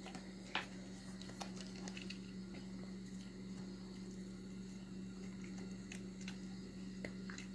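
A puppy gnawing on a rawhide chew: faint, irregular clicks and soft wet squishing over a steady low hum.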